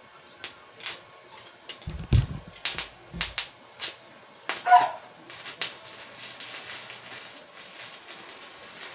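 Arc welding with a stick electrode on a steel plate, from a Mitsushi 300S inverter welder: the rod is tapped and scratched to strike the arc, giving a run of sharp cracks and pops with a couple of thumps, then about five and a half seconds in the arc holds as a steady crackling hiss.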